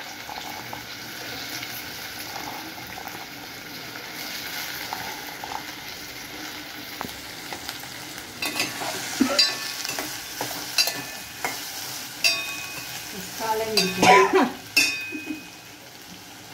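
Chopped okra sizzling in hot tempering oil in a small steel pot, a steady frying hiss. From about eight seconds in, a steel spoon stirs it, clinking and scraping against the pot, loudest about fourteen seconds in.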